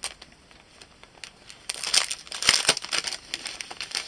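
Clear cellophane bag crinkling as it is handled and a card packet is slid out of it, starting a little under two seconds in and continuing as a dense crackle.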